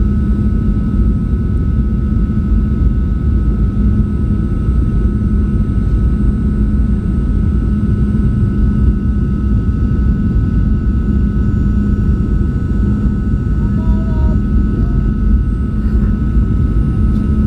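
Jet airliner cabin noise: a steady low rumble of airflow and engines with a constant hum, heard from inside the passenger cabin.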